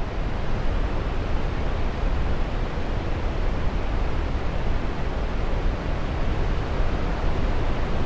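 Steady, deep rush of a large waterfall on the Genesee River, a heavy volume of water pouring over the crest and crashing into the gorge below.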